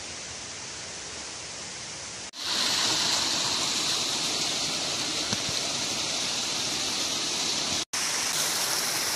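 Steady rush of a rocky forest stream. A softer even hiss for the first two seconds, then a cut to louder, brighter water noise.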